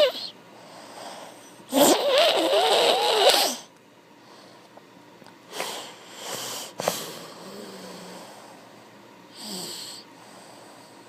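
Snoring: one long, loud snore of about two seconds with a wavering, whiny pitch, followed by several shorter, quieter snorting breaths and a sharp sniff about seven seconds in.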